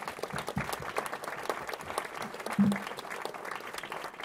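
Audience applauding: a roomful of people clapping steadily, with one brief louder low sound about halfway through.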